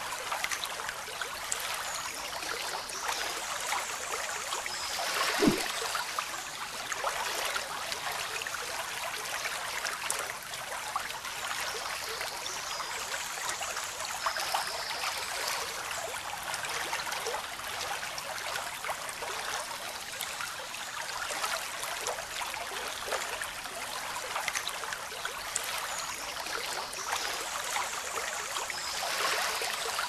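Small stone fountain: a thin stream of water pouring onto a rock in a shallow stone basin, making a steady trickling splash.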